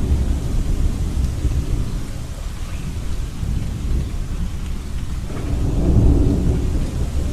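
Thunderstorm: thunder rumbling low and continuously over steady rain, swelling louder about five seconds in.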